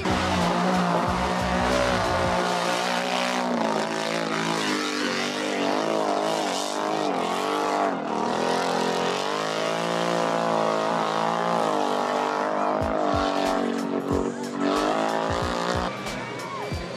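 Off-road vehicle engine revving high, its pitch rising and falling again and again, with a few low thumps near the end.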